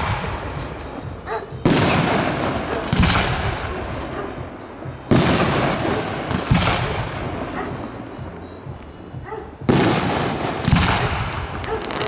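Aerial firework shells bursting overhead, about six sharp bangs a second or more apart, each trailing off in a fading crackle of falling stars.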